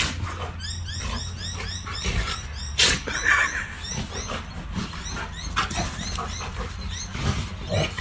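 Two dogs play-fighting, making dog vocal noises, with one loud sharp burst about three seconds in.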